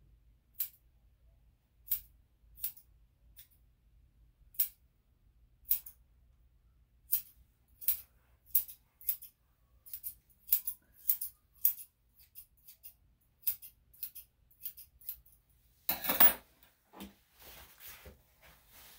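Grooming scissors snipping the hair on a small dog's paw and leg: sharp single snips, a few seconds apart at first, then closer together, up to a couple a second. About sixteen seconds in comes a louder clatter, then soft rustling.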